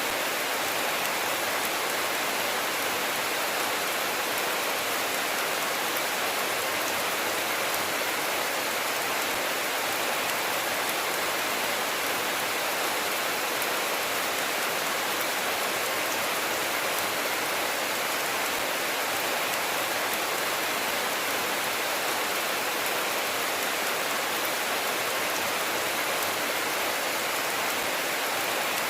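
Steady rain falling, an even hiss of many drops without a break. No thunder sounds.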